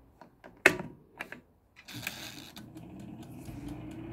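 A few sharp clicks, the loudest about two-thirds of a second in, then about two seconds in a halogen convection oven's fan starts up, a steady whir rising in pitch as it spins up.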